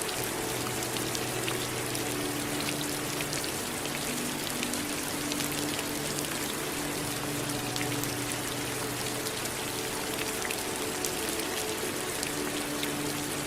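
Steady rain with many separate drops heard, and a faint low steady hum underneath.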